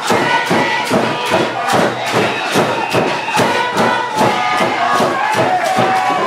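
Music with a quick, even drum beat, about four strokes a second, and steady horn-like tones, over crowd noise.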